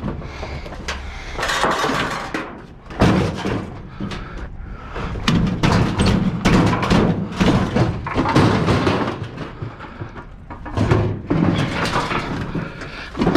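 A clothes dryer's sheet-metal cabinet being lifted, tumbled and dropped, giving a run of clanks and bangs with rattling, in clusters from about three seconds in and again near the end. It is being shaken to knock loose coins out of its insides.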